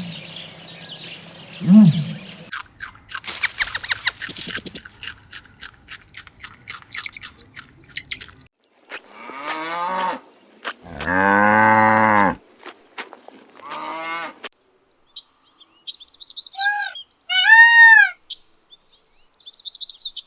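A string of different animal calls, one after another: a falling call, then a long run of rapid clicking, then drawn-out low calls including a cow mooing, and near the end a few short high arching calls.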